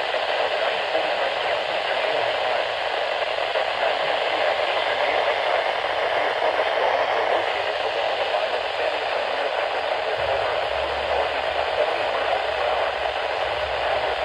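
Steady hiss of static from a NOAA Weather Radio receiver, with no voice on the channel. A faint low hum comes in about ten seconds in.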